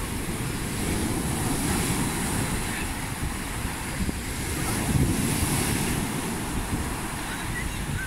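Rough Mediterranean surf after a storm, waves breaking and washing up a sandy beach in a continuous rushing wash that swells and eases as the sets come in. Wind buffets the microphone with a low rumble.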